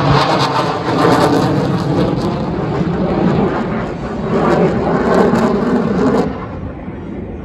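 Heritage-flight formation of an F-22 Raptor with P-51 Mustang warbirds flying past: loud jet engine noise rising and falling as the aircraft pass overhead. It cuts down sharply about six seconds in, leaving a fainter rumble.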